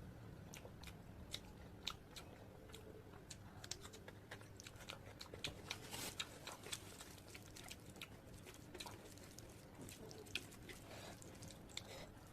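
Close-up eating sounds: chewing and biting into chicken curry, with many small sharp crunches, smacks and clicks scattered irregularly throughout.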